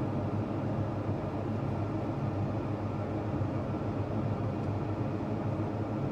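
Farm tractor engine running at a steady, even drone, with no change in speed.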